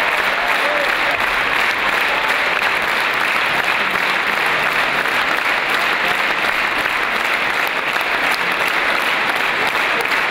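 Large audience applauding steadily, a dense unbroken clapping.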